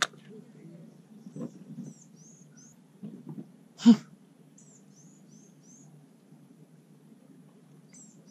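Small birds chirping in short, high calls that come in little runs of three or four. A sharp click comes right at the start, and a louder sharp knock about four seconds in.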